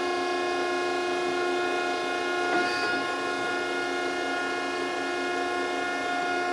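Landis Model 1R cylindrical grinder's hydraulic pump running with a steady whine.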